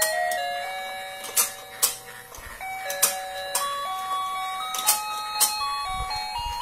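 Toy fishing game playing its simple electronic tune, one plain note at a time stepping up and down, with a sharp plastic click about every second and a couple of dull knocks.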